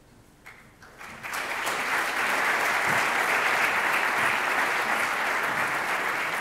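Audience applauding: clapping starts about a second in, swells quickly and holds steady.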